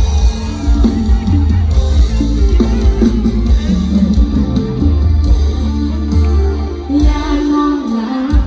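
Thai luk thung band music with a drum kit and a heavy bass line.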